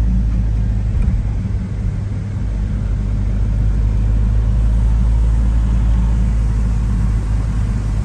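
Car running on the road: a steady low engine and road rumble.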